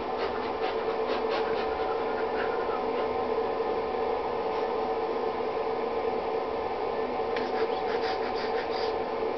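A cat's claws and paws scratching and skittering on the hard surface of an empty whirlpool bathtub as it plays with a toy, in short clusters at the start and again near the end, over a steady hum.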